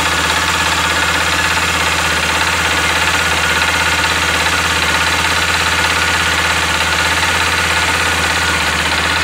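Honda XRE 300's single-cylinder engine idling steadily with a knocking noise in the engine, which the owner takes for piston slap, a connecting rod, or the bolts behind the starter clutch.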